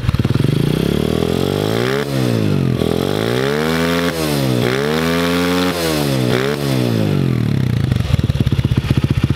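Polini 110 pit bike's small single-cylinder engine revved by hand in a series of throttle blips, each rising and then dropping back, before settling into an uneven idle near the end. The engine was started for the first time after years of sitting and is still cold.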